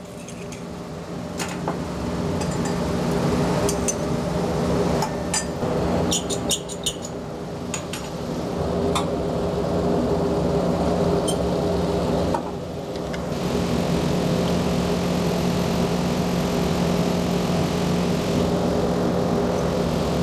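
Bunsen burner running with a steady rushing noise and a low hum, with a few sharp clicks and knocks from handling the burner in the first several seconds. The noise drops briefly about twelve seconds in as the burner is adjusted.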